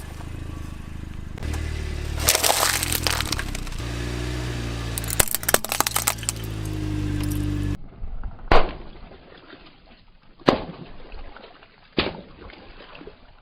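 Car engine running low as its tyre rolls over and crushes crunchy objects, with bursts of crackling and breaking. After a cut, three separate sharp cracks about two seconds apart.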